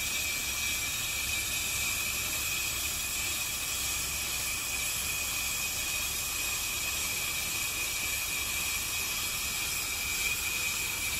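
Kwik-Way on-car brake lathe running a cutting pass on a 2004 Honda Pilot's front brake rotor, with the car's engine driving the hub: a steady hiss with a constant high whine.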